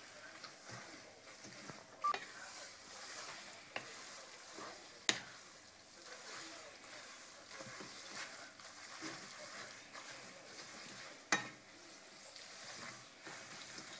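Spaghetti, bacon and cream sizzling in a non-stick frying pan as they are stirred and tossed with a wooden spatula, with three sharp knocks of the spatula against the pan.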